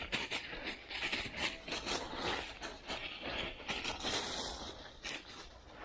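Footsteps of a dog and a person hurrying through deep, dry beech leaf litter: irregular rustling and crunching of the leaves.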